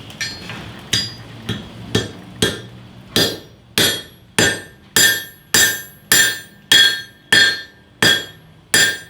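Blacksmith's hammer striking a hot nail blank held in a nail header on the anvil, upsetting the nail's head. A steady series of about sixteen blows, one every half second or so, growing louder after the first few, each with a bright metallic ring.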